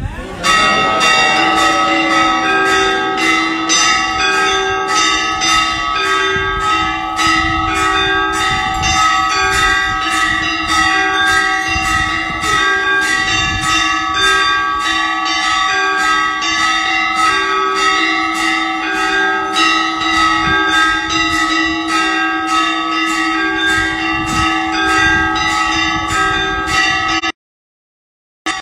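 Temple bells rung continuously and rapidly for the aarti, about two to three strikes a second, their ringing tones overlapping into a steady clangour. The sound cuts out abruptly for about a second near the end.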